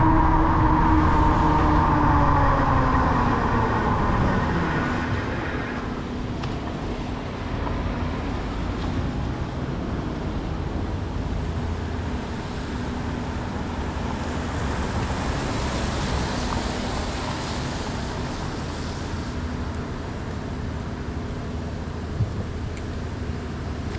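City street traffic heard from a moving bicycle. A passing vehicle's whine drops in pitch as it goes by in the first few seconds, then steady road rumble and wind noise follow, with other cars passing.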